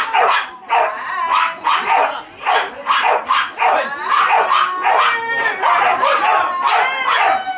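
Flyball dogs barking and yipping rapidly, about two to three sharp barks a second, turning into longer, drawn-out yelps in the second half.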